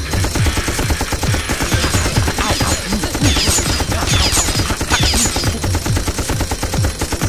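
Sustained rapid machine-gun fire from a gatling-gun sound effect, with a few falling whines around the middle.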